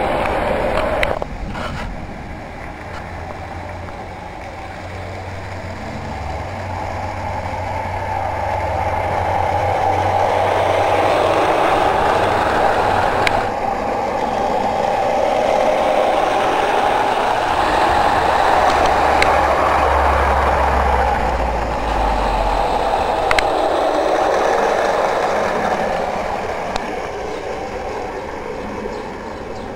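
Ferris O gauge electric model train running on its track: a steady motor and wheel rumble that grows louder over the first several seconds, stays loud through the middle, and fades near the end, with a few sharp clicks.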